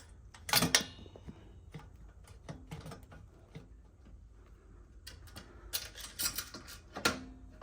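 Metal hand tools and small parts clinking and clattering as they are handled and set down, with a sharp clank about half a second in and a quick run of clinks near the end.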